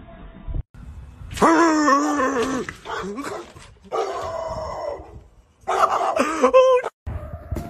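Grey pit bull-type dog vocalizing in three long, wavering cries of about a second each, with short pauses between them.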